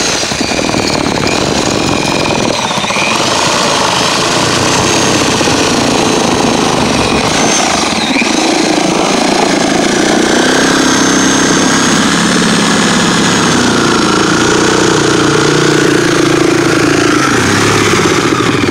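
Corded reciprocating saw with a metal-cutting blade running continuously as it cuts a circle through wooden roof decking. It starts suddenly, and its pitch wanders up and down as the blade bites.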